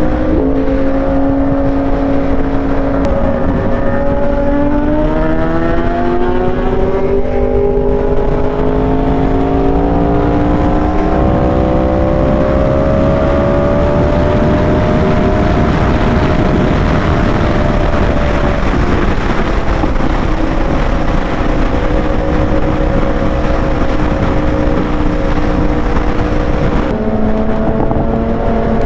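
Yamaha R1's crossplane inline-four engine under way at freeway speed. Its note climbs slowly as the bike pulls through a gear, then holds steady under a growing rush of wind. About 27 seconds in, the note changes abruptly with a gear change.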